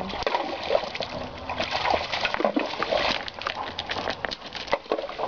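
A Weimaraner splashing about in a shallow stream running over rocks, with many short splashes and knocks over the steady rush of water.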